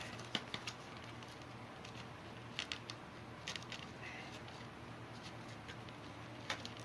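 A few faint, scattered clicks and light taps as hands handle a RAM module and computer parts, over a low steady hum.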